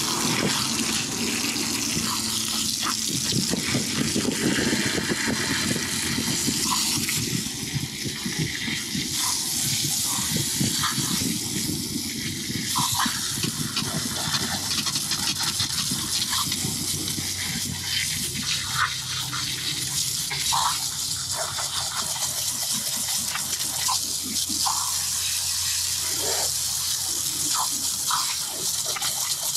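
Water spraying steadily from a hand-held hose nozzle into the base pan of a vertical PTAC air-conditioning unit, splashing on the metal as it washes out dirt.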